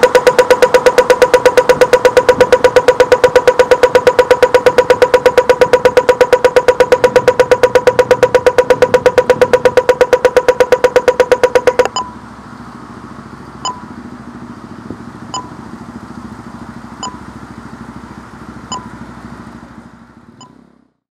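Pedestrian crossing signal ticking rapidly, about eight loud ticks a second, the walk phase; about twelve seconds in it stops and gives way to a slow, quieter tick about once every second and a half, the wait signal, over low steady traffic noise.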